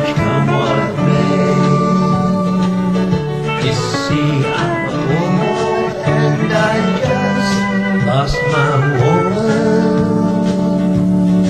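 Country-rock band music, with guitars to the fore over bass and drums.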